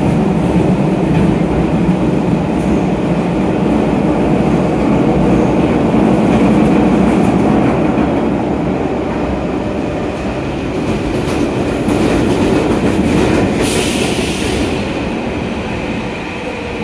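Athens metro train running through the tunnel, heard from inside the carriage: a steady deep rumble with faint clicking from the wheels on the rails. About three-quarters of the way through comes a short, loud hiss, and the rumble quietens a little toward the end.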